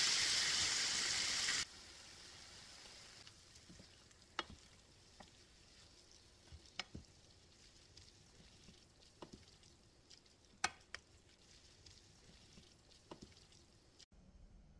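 Minced pork bulgogi sizzling loudly in a frying pan, the sizzle stopping abruptly under two seconds in. After that, faint scattered clicks and scrapes of wooden spatulas stirring the meat in the pan.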